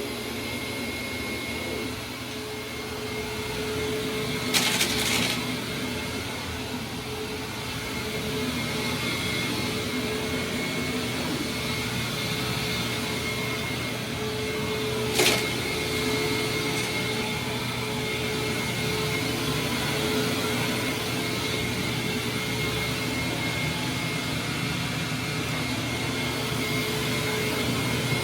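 Hoover WindTunnel Supreme upright vacuum cleaner running steadily, a constant motor hum with a steady whine. Two brief sharp noises stand out, about five and fifteen seconds in.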